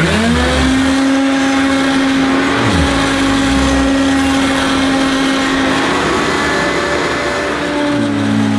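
Hoover U2194 Turbopower upright vacuum cleaner switching on, its motor whining up to speed within half a second and then running steadily as it is pushed over carpet, with a shift in tone near the end. The motor sounds not too bad, but not great and not as a Turbopower should, and dry motor bearings are suspected.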